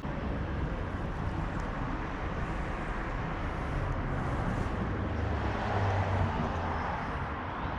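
Steady road and engine noise of a car driving, with a low rumble that swells slightly about six seconds in.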